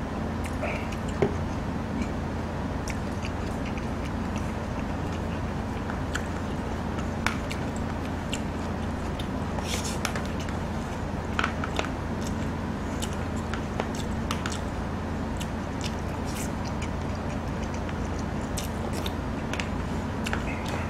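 Close-up eating sounds: chewing, with a spoon giving scattered clicks and scrapes against a stone pot, over a steady low hum.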